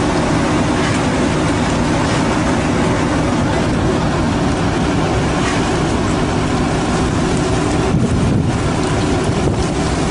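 Fishing boat's engine running steadily, a low drone under a constant hiss of wind and water.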